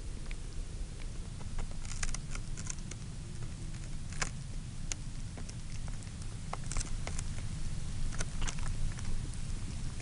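North American porcupine feeding on hawthorn berries: irregular small crunches and clicks, over a steady low rumble.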